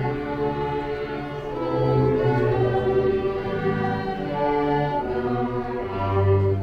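Slow orchestral music, held string-like chords that change every second or two.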